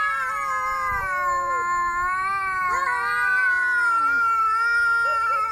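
Angry cat giving one long, drawn-out yowl that wavers slightly in pitch, the aggressive caterwaul of a cat warning off a rival.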